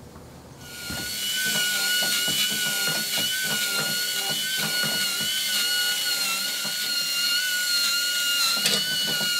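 Drill spinning a wire wheel against a rusty steel axle shaft to clean it. It runs at a steady, high, constant whine, with light scratching of the wire bristles on the metal, and starts about a second in.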